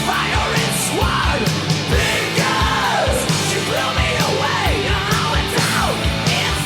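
Hard rock / heavy metal music with distorted guitars and a driving kick drum, while a lead line slides and bends up and down in pitch over it.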